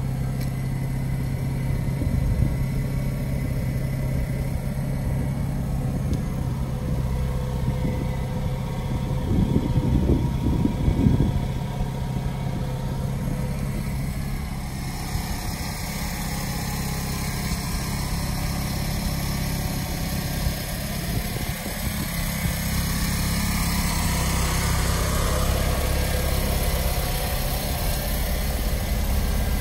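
Fiat 500L's 479cc air-cooled twin-cylinder engine idling steadily, briefly louder around ten seconds in.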